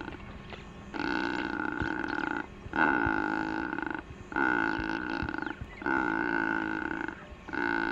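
Secretarybird calling: a series of drawn-out, pitched calls, each a little over a second long with short pauses between. Four are complete and a fifth starts near the end.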